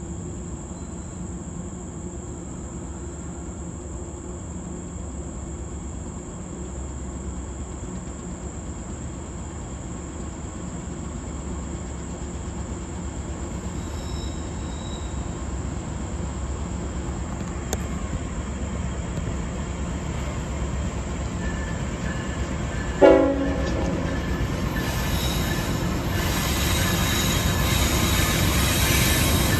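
Diesel locomotives of a heavy loaded coal train working hard as they approach, their low rumble growing steadily louder. About 23 seconds in comes one short, sharp horn toot, and over the last few seconds steady wheel squeal joins as the engines come close. Insects trill faintly underneath until the train drowns them out.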